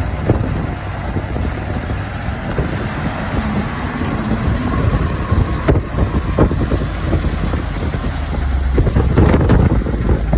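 Excavator engine running under load, with scattered knocks and scraping of rock against the bucket, louder and busier about nine seconds in.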